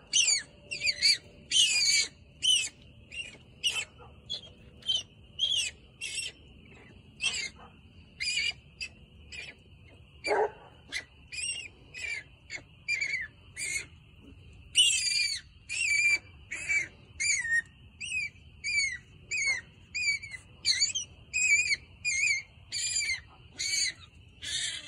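A mating pair of striped skunks giving short, high-pitched squeals about twice a second, over and over.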